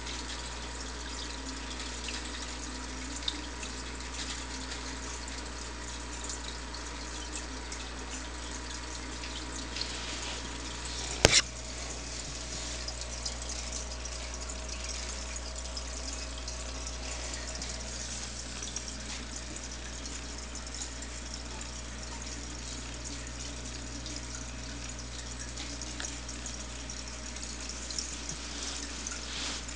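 Steady trickling of circulating water in a home aquarium, over a low hum. A single sharp click about eleven seconds in.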